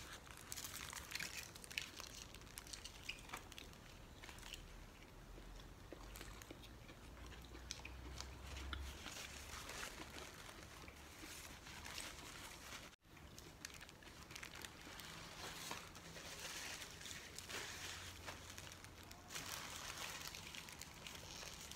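Faint eating sounds: a burger being bitten and chewed, mixed with the crinkle of its paper wrapper being handled. The sound drops out for a moment about two-thirds of the way through.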